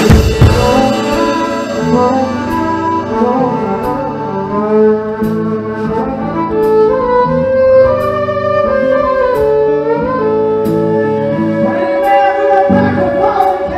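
Live rock band in a quiet passage. The full drum kit stops at the start, leaving held electric guitar and bass notes, with a light high tick about every second and a half. Lower notes come back in near the end.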